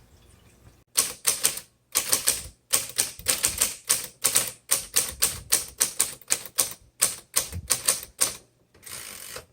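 Keys of a 1958 Cole Steel manual travel typewriter being typed at a brisk pace, about three to four sharp strikes a second, starting about a second in. Near the end the strikes stop and a brief steady rasping noise follows.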